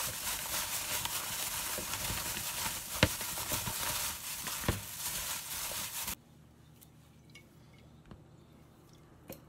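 A hand in a plastic glove mixing cubed daikon radish with its chili seasoning in a bowl: a steady wet rustling and crackling of glove and radish cubes, with a few sharp clicks. It cuts off suddenly about six seconds in, leaving near quiet with a few faint ticks.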